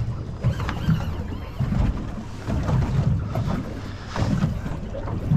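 Wind buffeting the microphone in an uneven low rumble, over the noise of a boat drifting on open water.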